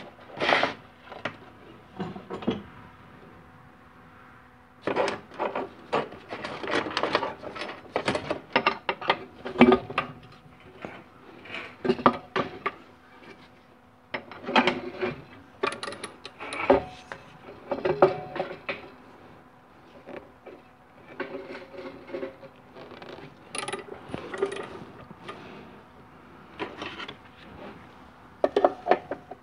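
Metal tools and parts clinking, scraping and knocking inside a GM 4L60E automatic transmission's aluminium case during hand disassembly, in irregular bursts of sharp clicks. The first few seconds are quieter.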